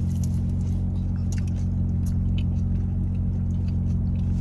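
Crispy fries being chewed close to the microphone in small scattered crunches, over the steady low hum of a car idling.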